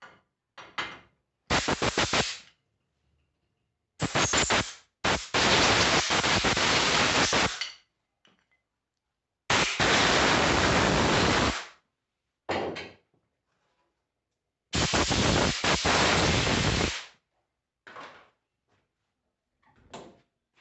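Sandblaster (abrasive blast gun) triggered in bursts, blasting starter motor parts clean: an even, loud hiss in four longer blasts of about one to three seconds each, with short blips between them.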